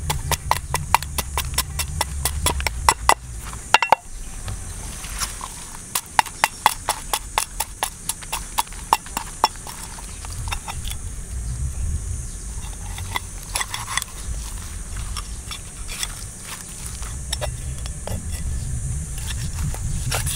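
Knife blade scraping the scales off a large fish in quick, repeated strokes, several a second, with the scales crackling as they come away; the strokes grow sparser in the second half.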